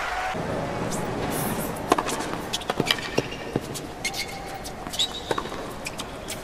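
Tennis ball bouncing on a hard court: a series of sharp, irregularly spaced clicks starting about two seconds in, with a few short high squeaks among them.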